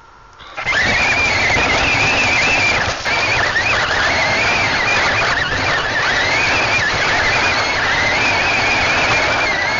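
The electric drive motors of a Nerf TerraScout RC tank whine loudly as it drives, picked up by the tank's own onboard camera. The whine wavers up and down in pitch with the motor speed, over a steady rushing noise.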